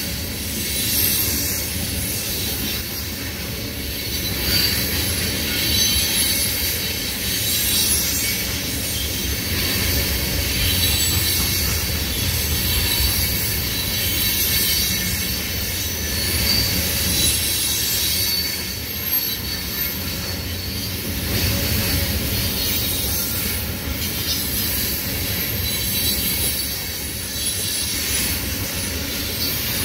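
Loaded tank cars of a freight train rolling past: a continuous rumble and rattle of steel wheels on rail that swells and fades gently as the cars go by, with thin steady high-pitched tones above it.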